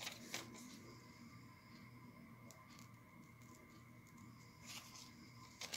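Scissors snipping thin catalog paper: a few faint, short snips over near-silent room tone.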